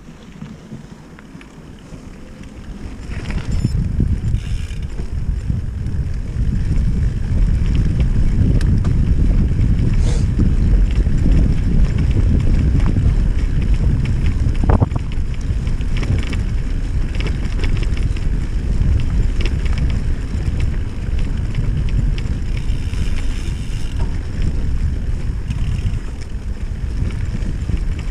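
Riding noise from a bicycle moving fast over bumpy grass: a steady low rumble of wind on the microphone and tyres on the ground, with scattered clicks and rattles from the bike. The rumble builds over the first few seconds, then stays loud.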